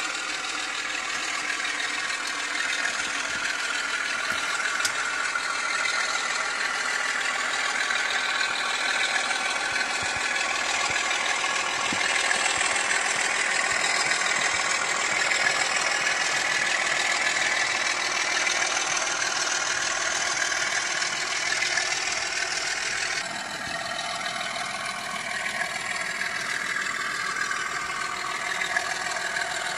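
Diesel engine sound from a DCC sound decoder in an N gauge Class 25 model locomotive, imitating the prototype's Sulzer engine, played through the model's small speaker with some mechanism rattle. The engine note climbs over many seconds, drops suddenly about three-quarters of the way through, then climbs again near the end.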